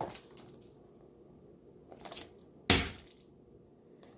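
Quiet room tone with a brief soft handling rustle about two seconds in, then a single sharp thump a little later that dies away quickly.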